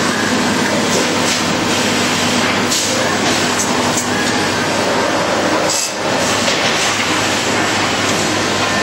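Textile slitting and cross-cutting machine for blankets and scarves running: a loud, even mechanical noise with a steady low hum and a few short hisses.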